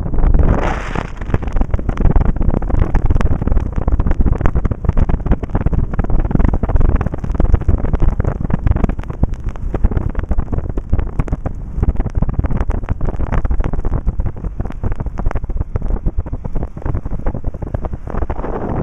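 Wind buffeting the microphone of a camera filming from a moving car, over the rumble of the car on the road: a dense, crackling noise with a louder gust about a second in.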